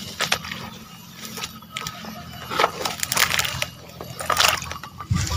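Dry grass and leafy weeds rustling and snapping in a few scattered crackles, with light sloshing of shallow water, as hands pull vegetation off a mesh frog trap lying in a flooded paddy.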